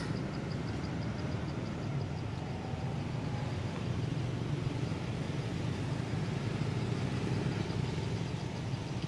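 Steady low outdoor rumble with a faint high-pitched pulse repeating about four times a second.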